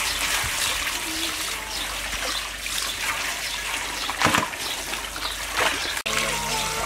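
Water running from a hose into a metal basin, splashing over large balls of noodle dough as a hand rinses them, with two louder splashes about four and five and a half seconds in.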